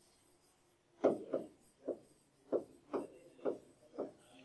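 A stylus tapping and sliding on the glass of an interactive display as letters are written: about seven soft, short knocks half a second or so apart.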